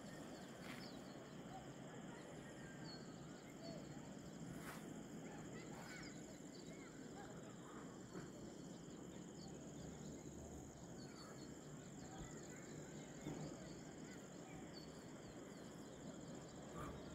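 Faint outdoor ambience: many scattered short bird chirps over a steady high-pitched whine, with a few soft clicks.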